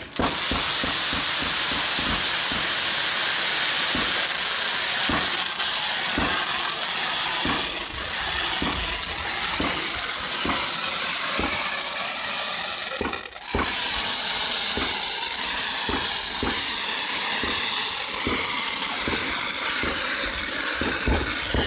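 Fireworks going off: a continuous loud hiss with a rapid, irregular run of sharp pops and bangs, easing briefly about halfway through.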